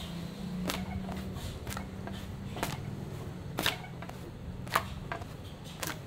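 Sharp knocks and slaps from roti canai being made, coming irregularly about once a second over a steady low hum.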